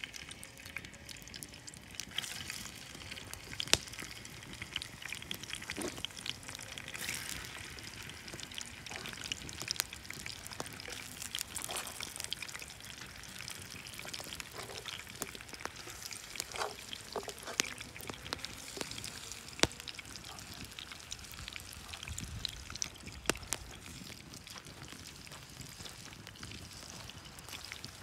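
Pot of water with chips part-boiling over an open wood fire, bubbling steadily, with scattered sharp pops and crackles throughout.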